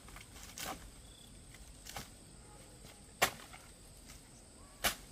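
Four sharp, separate strikes on wood, spaced a little over a second apart, the third the loudest, as timber is worked with a hand tool during building.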